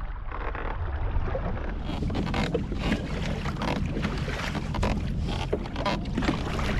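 Wind buffeting the microphone over choppy water, with small waves slapping and splashing against a kayak's hull in irregular ticks that thicken after the first couple of seconds.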